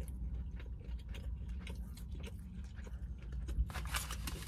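Close-up chewing of a mouthful of chicken salad sandwich: many small wet clicks and smacks over a low steady rumble. A steady hiss comes in near the end.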